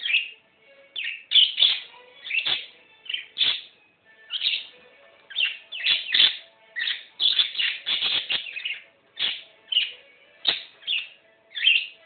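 Budgerigar chattering: a rapid run of short, sharp, high chirps, about twenty in all, coming in little clusters with brief pauses between.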